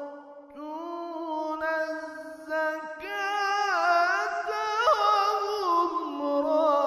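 A man reciting the Quran in a melodic, drawn-out style, holding long vowels with ornamental turns. The pitch steps up about three seconds in and wavers there, then settles on a lower held note near the end.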